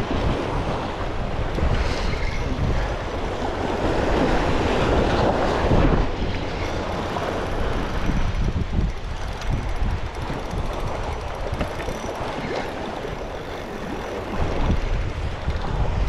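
Strong gusting wind buffeting the microphone in a deep, rumbling roar, with surf washing in underneath.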